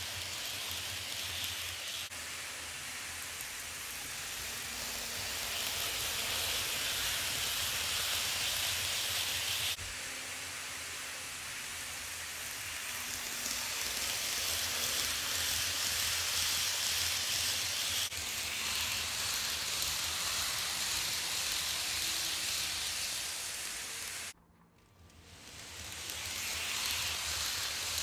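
Kato N-scale Amtrak Amfleet passenger cars rolling on track behind an ACS-64 locomotive: a steady rushing hiss of small metal wheels on the rails, swelling and easing as the cars pass close. It dies away suddenly for about a second near the end, then builds again as the locomotive comes by.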